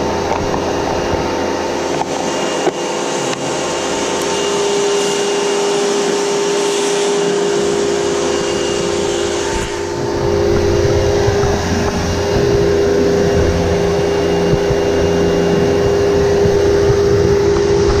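Upright vacuum cleaner motor running steadily with a constant whine, with a few light clicks about two to three seconds in. The sound gets a little louder and fuller about ten seconds in.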